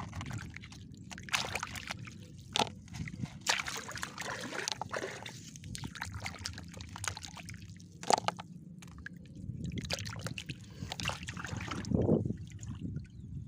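A hand sloshing and splashing through shallow water over mud while digging for clams by hand, irregular splashes with trickling in between.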